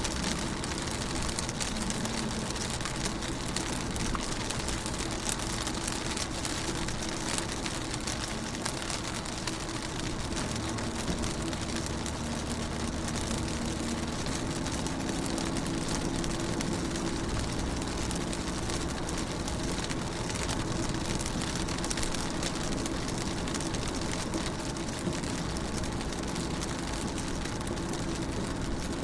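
Rain falling on a car's windows and body: a steady patter of many fine drops, with a faint low hum underneath.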